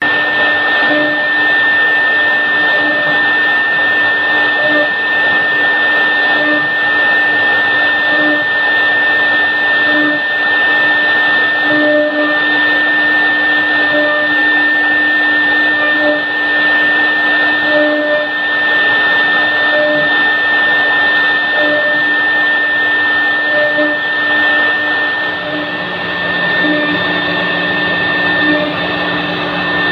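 Three-head CNC router engraving a wooden door panel: the spindle runs with a steady high whine over the noise of the bit cutting the wood. Underneath is a lower hum that swells about every two seconds.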